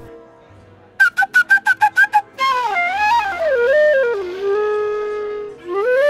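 Transverse flute playing a quick run of about ten short staccato notes. It then moves into a flowing, wavering melody that settles on one long held note before a new phrase begins near the end.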